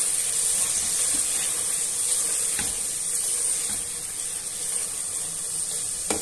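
Sliced onions with garlic and ginger paste sizzling steadily in hot oil in a pot as they are stirred with a silicone spatula, with a few soft knocks of the spatula against the pot.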